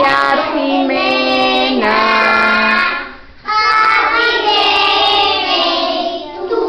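A group of young children singing a birthday song together, with a short break about three seconds in before they carry on.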